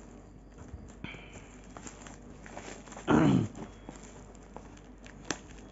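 Scissors snipping and plastic bag wrapping rustling and crinkling as a taped parcel is cut open. About three seconds in there is a short vocal grunt that falls in pitch, and a sharp click comes near the end.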